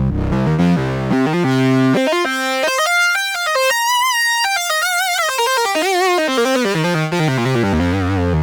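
Oberheim Matrix 12 analog synthesizer playing a buzzy pitched tone that climbs in steps from a low bass note to a high note about four seconds in, then steps back down to the bass by the end.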